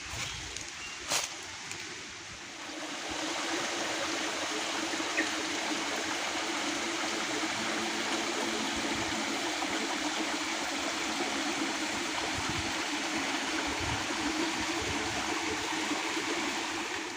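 Steady rushing of flowing river water, swelling in after two or three seconds and then holding even. There is a single sharp click about a second in.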